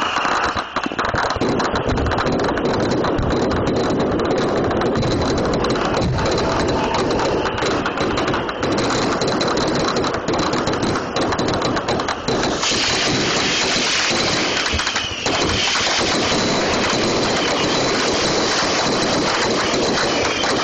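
Fireworks going off at close range in a rapid, continuous barrage of bangs and crackles. About two-thirds of the way through, a steady bright hiss joins in.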